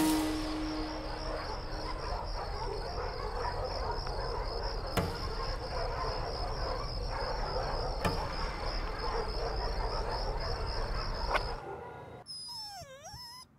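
Crickets chirping steadily over night-time ambience, with a sharp hit at the start and a few fainter knocks. About twelve seconds in, the ambience drops away and a wavering cry, gliding up and down in pitch, is heard.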